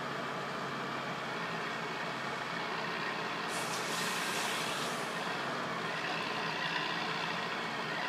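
Wheeled forestry harvester's diesel engine running steadily as its hydraulic crane swings, with a brief hiss about halfway through.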